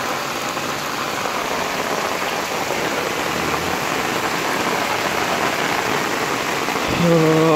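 Heavy rain pouring onto a flooded lane, a dense steady hiss of rain hitting the water. A man's voice comes in briefly at the very end.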